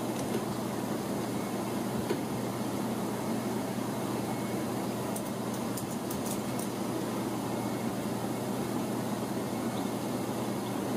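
Steady low background rumble, like distant traffic, with a few faint high ticks about halfway through.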